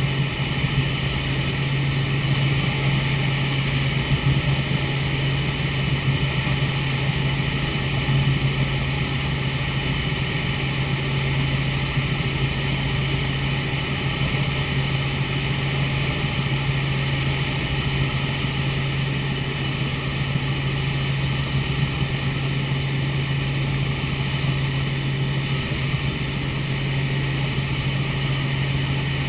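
Robinson R44 Raven II helicopter in cruise flight, heard from inside the cabin: its six-cylinder Lycoming engine and rotors make a steady, unchanging drone mixed with a constant rush of airflow noise.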